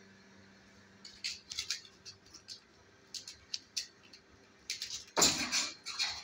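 A kitten's claws scratching and clicking in short, scattered scrabbles as it climbs a cable up a corrugated wall, with a louder, longer scrape about five seconds in.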